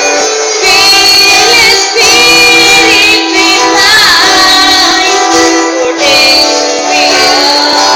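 Church band rehearsing: a voice singing a bending melody over loud, held instrumental chords.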